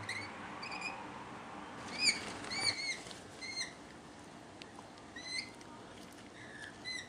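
A small bird calling: about ten short, squeaky chirps, each rising then falling, coming singly and in quick pairs at irregular intervals.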